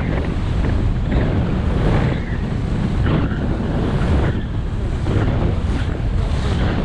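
Wind buffeting a GoPro's microphone as a skier moves over groomed snow, a loud steady rumble with the skis hissing on the snow and a few brief swishes.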